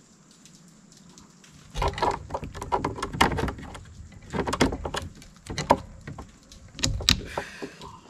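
Close handling noises: an irregular run of knocks, clicks and scraping rustles that begins about two seconds in and stops shortly before the end, with one sharp click near the end.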